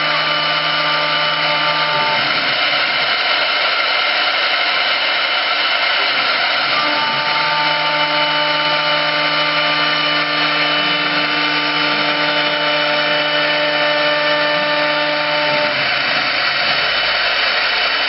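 CNC wood lathe's router carving spindle running, a loud steady machine noise with a steady whine over it. The whine drops out about two seconds in, returns about seven seconds in, and stops again near the end.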